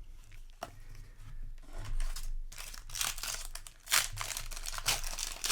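Plastic booster-pack wrapper crinkling and tearing as it is handled, in irregular crisp bursts that grow louder from about two seconds in.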